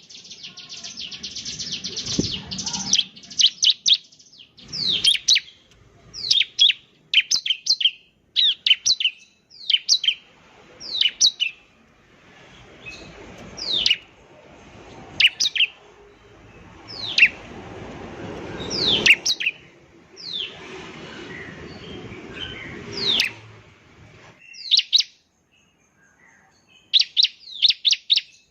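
Ciblek (bar-winged prinia) singing: a fast buzzy trill, then clusters of sharp high chirps that sweep steeply downward, coming in quick bouts with short pauses between them. A soft rustling noise sits under the song in the middle part.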